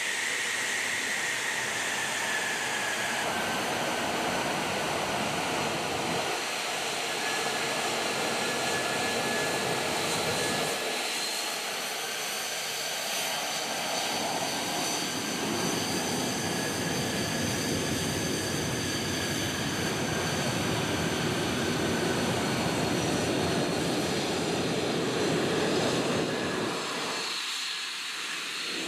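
Lockheed Martin F-35A Lightning II's single Pratt & Whitney F135 turbofan running on the ground as the jet taxis: a loud, steady jet roar with a high whine that sinks a little in pitch in the first few seconds.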